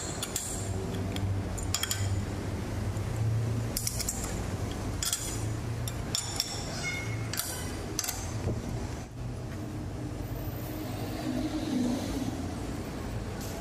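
A steel wrench clinking against the bolts and body of a lathe's four-way tool post as the tool bolts are worked, with sharp metallic clinks scattered through the first two-thirds over a steady low hum.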